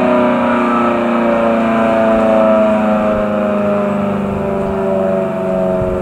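Federal Signal Model 5T three-phase storm siren sounding a loud, continuous steady tone with a stack of overtones, its motor powered through a rotary phase converter.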